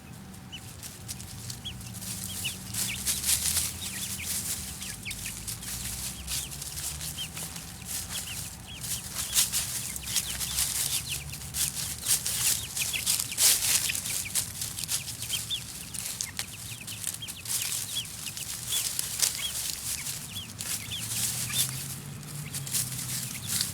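Five-week-old chickens scratching and pecking through dry leaf litter: many short rustles and crackles, with soft, short high peeps from the young birds throughout.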